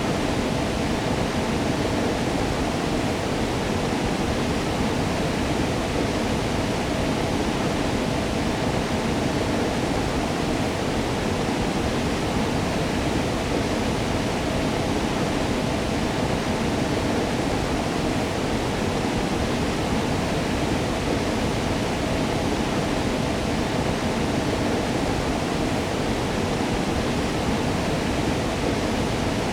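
Waterfall rushing steadily: a dense, even roar of falling water, heaviest in the low and middle range, with no breaks or changes.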